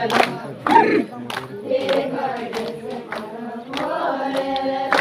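A group of dancers singing a garba song together, with sharp rhythmic beats about twice a second.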